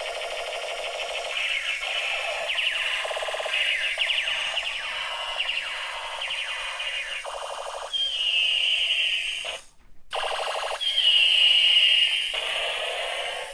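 Battery-powered toy light gun playing its electronic sound effects through a small speaker: warbling, alarm-like tones that shift pattern every second or so. In the second half come two long falling laser sweeps, with a brief break between them.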